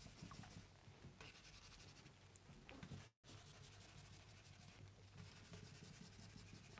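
Faint scratching and rubbing of a marker pen writing on a whiteboard, very quiet, with a brief dead gap about three seconds in.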